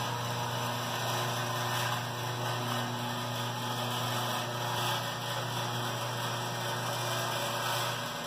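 Hi-Fold bifold door's drive motor running with a steady hum while the door lowers.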